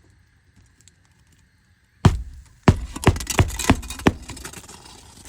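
Hammer driving a roofing nail into a shingle: about six sharp blows, a few a second, starting about two seconds in and growing fainter towards the end.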